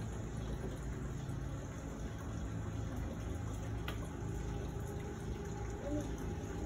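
Steady running, gurgling water from the garden pond outside.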